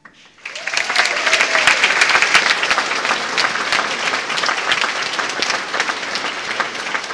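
Audience applauding: dense clapping that swells up about half a second in and holds at a steady level.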